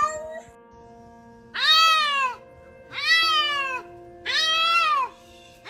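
Cat meowing: three long, drawn-out meows about a second and a half apart, each rising and then falling in pitch.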